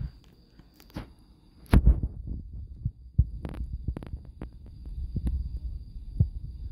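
Handling noise of a hand-held phone: a string of knocks and rubs against the phone's body, loudest about two seconds in, over an uneven low rumble.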